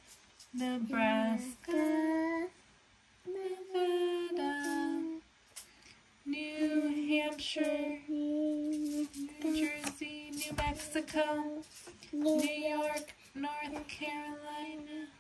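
A woman and a young child singing a simple tune in short phrases of held notes, with brief pauses between them.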